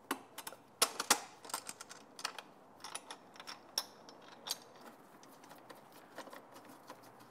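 Small metal clicks and taps of a hex key, screws and washers being handled as bolts are started by hand, irregular, with a few sharper clicks about a second in.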